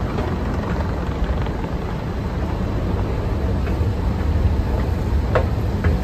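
Metro station escalator running: a steady low rumble, with a few sharp clicks near the end.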